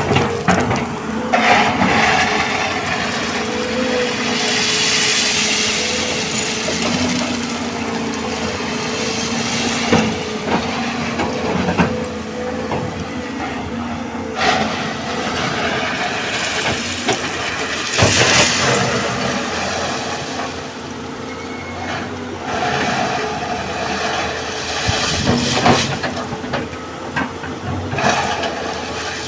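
Hydraulic excavator at work: the engine and hydraulics run with a steady whine, with bursts of hiss and scattered knocks from the machine as it digs.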